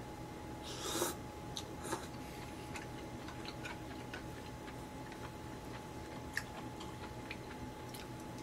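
Noodles slurped briefly about a second in, then quiet chewing and scattered light clicks of chopsticks against a bowl and plate, over a faint steady hum.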